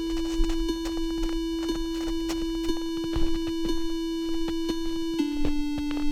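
Synthesized tone sequence generated from a route: a steady electronic note held for about five seconds, then stepping down to a slightly lower note, with a light tick about once a second. The length of each note is set by the calculated travel speed and its pitch by the elevation.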